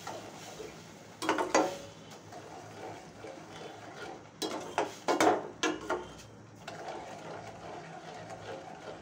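A metal ladle stirring and scraping against a stainless steel pan, mixing sugar into thick, reduced milk. Two bursts of rapid scraping strokes come about a second in and again from about four to six seconds in, with softer stirring between them.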